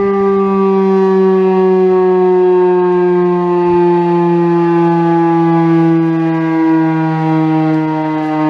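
Federal Signal STH-10 outdoor warning siren sounding one loud wailing tone that falls slowly and steadily in pitch as the siren winds down, swelling and fading gently in loudness.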